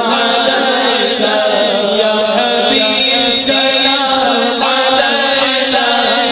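A man's voice sings a naat in long, gliding melismatic phrases into a microphone, without instruments, over a steady low drone held beneath it.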